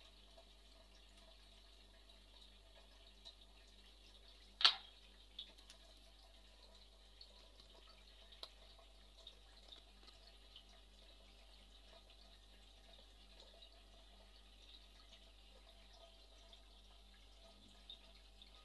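A single sharp click about four and a half seconds in, followed by a few faint scattered ticks over a low steady hum.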